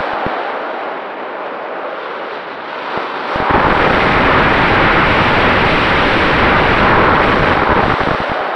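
Wind rushing over the microphone of a camera riding on an RC glider in flight, a loud steady hiss with gusty low rumble. It grows louder about three and a half seconds in and eases off near the end.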